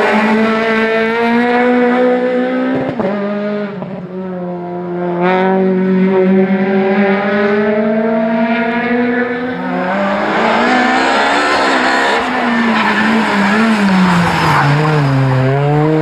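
Rally car engines revving hard on a tarmac special stage: a Peugeot 208 rally car pulls through several quick gear changes, then after about ten seconds a second rally car slides through a hairpin with tyre squeal, its revs dropping into the bend and climbing again on the way out.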